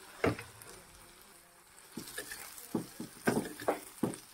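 Metal ladle scraping and knocking against a metal pot as chilli powder is stirred into frying onions: one knock just after the start, then a run of quick stirring strokes over the last two seconds.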